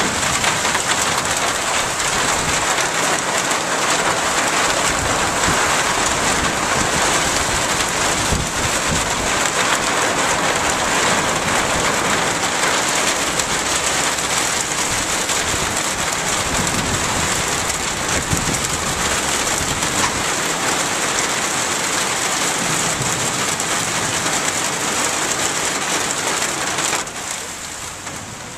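Rain pouring down in a thunderstorm: a loud, steady hiss that drops off sharply near the end.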